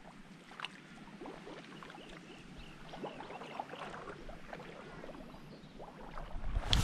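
Light footsteps and rustling along a sandy creek edge, then, just before the end, a sudden loud rushing splash as a thrown cast net lands on the water.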